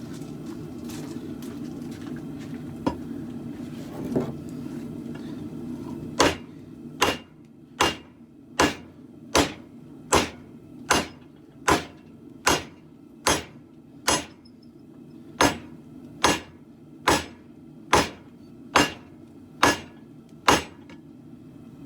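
Hammer blows on a khopesh blade at the anvil during forging. After about six seconds of a steady low hum with a few light knocks, evenly spaced sharp metallic strikes follow, a little more than one a second and about eighteen in all, with a brief pause partway.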